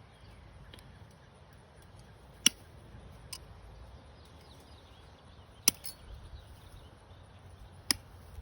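Wire snips cutting through wire fencing: three sharp snaps a few seconds apart as strands are cut, with a few fainter clicks between them.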